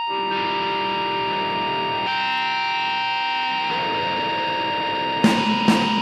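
Opening of a black metal track: a held, droning chord that shifts about two seconds in, with drum hits breaking in about five seconds in.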